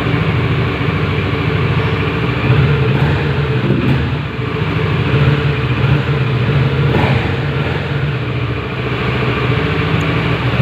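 Kawasaki Ninja 650 parallel-twin engine running at idle, louder briefly about two and a half and five seconds in.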